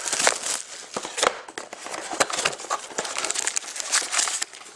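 Plastic shrink-wrap being pulled off a trading-card box and crumpled by hand, with irregular crinkling and crackling throughout.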